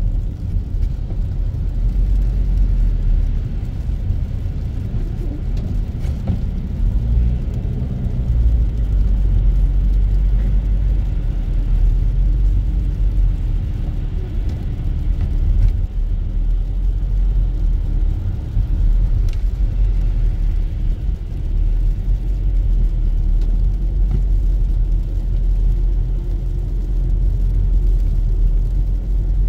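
Car interior noise while driving: a steady low rumble of the engine and tyres on a slushy, snow-covered road, heard from inside the cabin.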